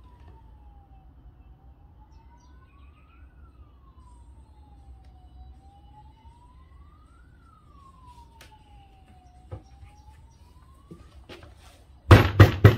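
Emergency vehicle siren wailing faintly, its pitch slowly rising and falling about every four seconds. Near the end comes a quick, loud run of sharp knocks, about five a second.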